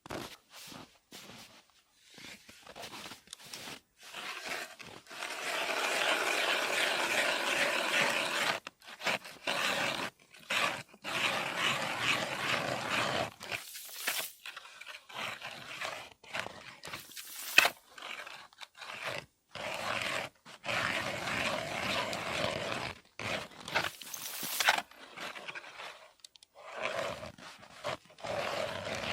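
Hand ice auger with a 130 mm bit drilling through ice: long stretches of steady crunching and scraping, a few seconds each, broken by short pauses.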